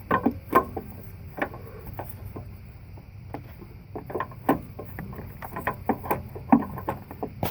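Scattered light clicks and knocks of a replacement fuel solenoid being worked up into its mount from below, over a faint steady low hum.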